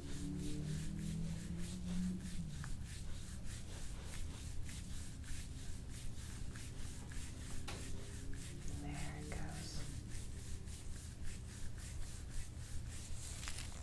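Hands rubbing rhythmically on the body during soft-tissue work, about two strokes a second, over a low steady hum.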